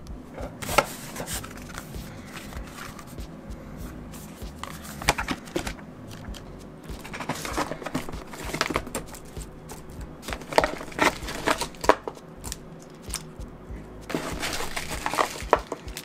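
Packaging being handled and unpacked: irregular rustling, crinkling and small knocks, busiest in the last few seconds.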